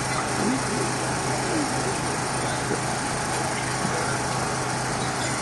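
Steady hiss with a constant low electrical hum from a live sound system, and faint murmuring voices from the gathering in the pause between recited verses.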